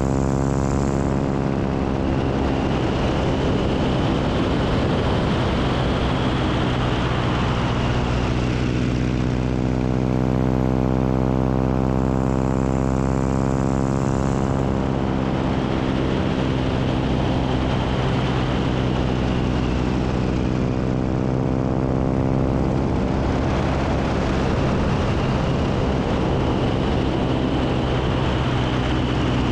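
A biplane's piston engine and propeller running steadily in flight, heard close up from the wing. The tone is constant in loudness, with a slow sweeping swirl in it that comes back about every ten seconds.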